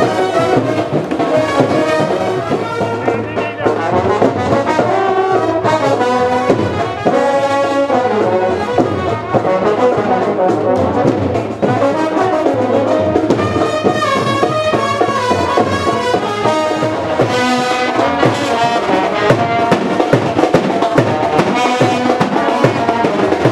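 Music played on brass instruments, a continuous melody with several horns sounding together.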